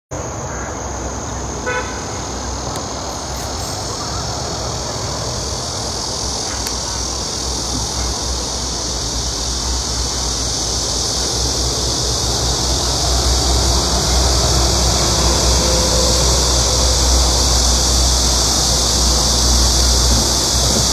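Outdoor ambience: a steady high-pitched hiss that grows slowly louder, over a low, fluctuating wind rumble on the microphone. A brief clatter of ticks sounds about two seconds in.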